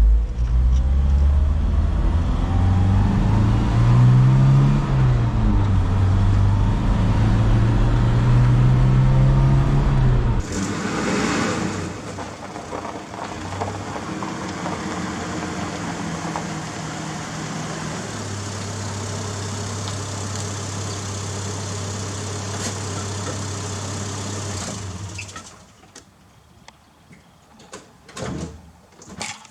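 Toyota Hilux 4Y four-cylinder petrol engine revving up and down under load for about ten seconds, then running quieter and steadier before falling away about 25 seconds in.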